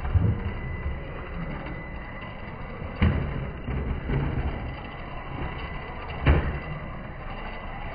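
Traxxas TRX-4 Sport RC rock crawler crawling over concrete roof tiles, with two sharp thumps, about three seconds in and again near six seconds, as its tires knock against the tiles.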